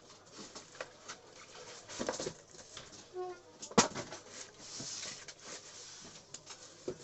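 A car stereo being unpacked from thermocol (polystyrene foam) packing: scattered rustles, scrapes and light knocks, with one sharp knock a little before halfway.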